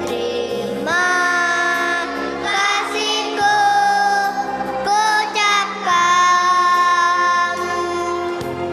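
A choir of young kindergarten children singing long held notes, with music playing along underneath.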